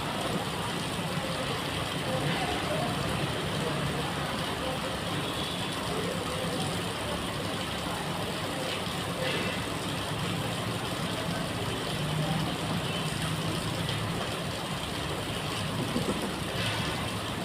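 Steady background hum of road traffic, with no distinct events standing out.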